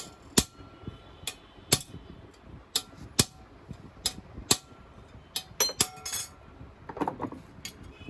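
Sharp metallic taps and clinks of hand tools working on a motorcycle drive chain, about a dozen irregular strikes, some leaving a brief metallic ring.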